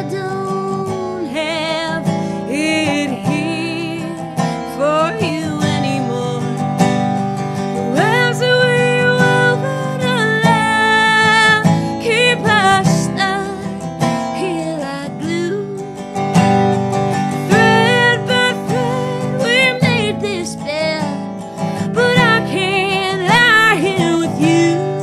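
A woman singing a slow, full-voiced melody with strong vibrato, accompanied by a resonator guitar played in a steady strum.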